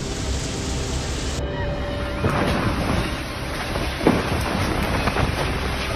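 Storm noise: a dense, steady rush like heavy rain, with sharp crackles through it. Faint musical tones underlie the first second or so, before a cut about a second and a half in.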